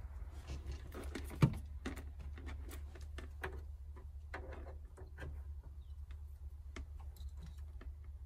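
Scattered small clicks and taps of hands working plastic wiring connectors and multimeter test leads, with one louder knock about a second and a half in, over a steady low hum.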